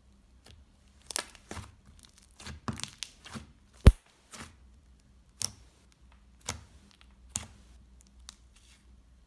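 Slime being handled, stretched and pulled apart, giving an irregular string of sharp crackling pops and clicks, the loudest about four seconds in.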